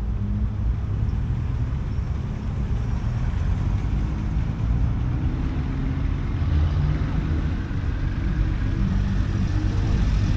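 Car engines running as traffic goes round a roundabout: a steady low rumble with engine hum, growing louder near the end as a classic car drives past close by.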